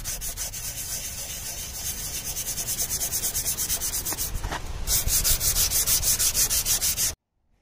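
Rusty metal lawn mower deck being sanded by hand with a 320-grit sanding disc: a quick, even scratching rhythm of back-and-forth strokes, with a short break about four and a half seconds in. It cuts off suddenly near the end.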